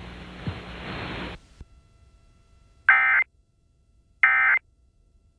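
Hiss from the weather radio that cuts off about a second and a half in, then two short identical bursts of warbling digital data tones a little over a second apart: the EAS SAME end-of-message code that closes the alert.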